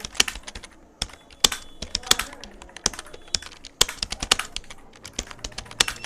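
Computer keyboard being typed on quickly, in irregular runs of key clicks with an occasional louder keystroke.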